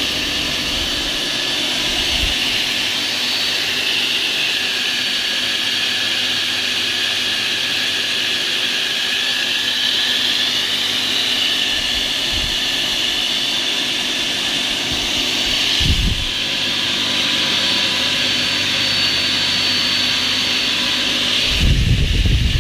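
Wadkin PK circular saw bench running free with no cut being made: a steady high-pitched whine and hiss of the spinning blade and motor. A low rumble joins near the end.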